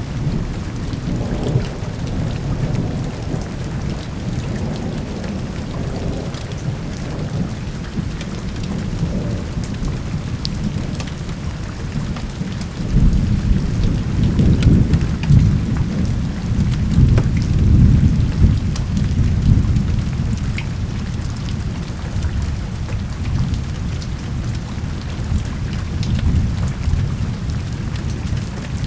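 Steady heavy rain with thunder rumbling low underneath; a long roll of thunder swells about halfway through and rumbles for several seconds before easing back.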